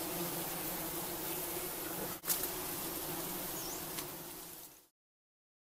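Honeybee colony buzzing: a dense, steady hum of many bees, broken by a brief click about two seconds in, then cutting off suddenly near the end.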